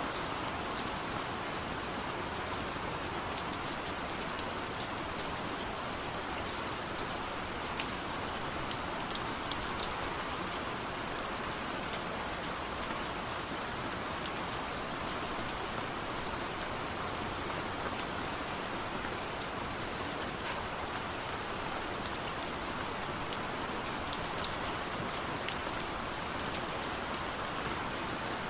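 Steady rain falling on a surface, an even hiss with scattered individual drops ticking through it and no thunder.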